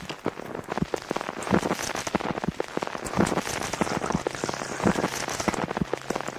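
Dense, irregular pattering and crackling: many small sharp taps over a steady hiss, like rain falling on a surface.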